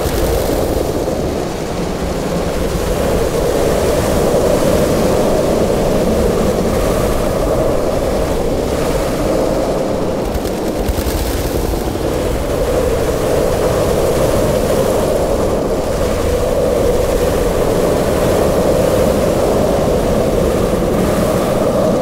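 Gryphon monster sound effect: a long, steady, noisy rumble that swells and eases slightly, with no separate roars, calls or impacts.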